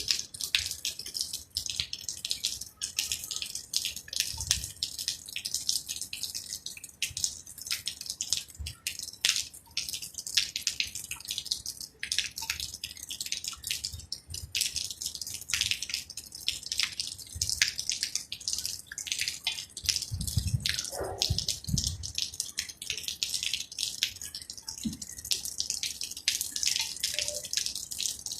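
Rain dripping and pattering: a dense, irregular stream of small sharp drops, with a brief low rumble about twenty seconds in.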